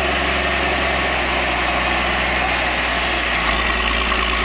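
Diesel backhoe engine running steadily while digging.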